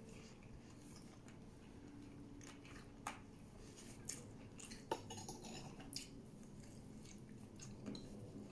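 Faint eating sounds: chewing and a few soft clicks and smacks as chicken and rice are picked off a plate by hand, with one sharper click about five seconds in.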